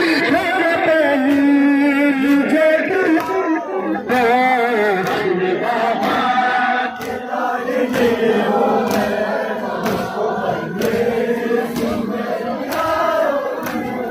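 A crowd of men chanting a Muharram mourning lament (nauha). The chant is carried on a steady beat of sharp strikes, about three every two seconds.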